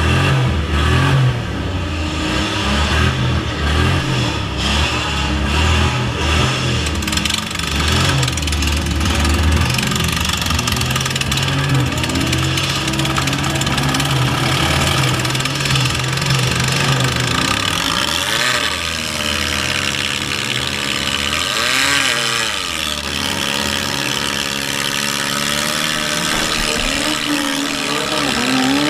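Demolition derby car's engine running loud, heard from inside the stripped cab. About two-thirds of the way through, its pitch swoops up and down several times as it is revved.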